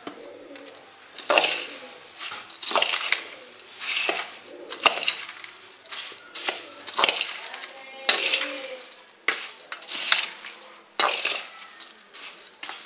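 A metal spoon stirring and tossing dry puffed rice in a perforated stainless steel bowl: scraping and clinking against the steel, with the puffed rice rustling, in irregular strokes about once a second.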